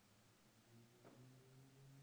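Near silence: faint low hum of room tone, with one faint small click about a second in.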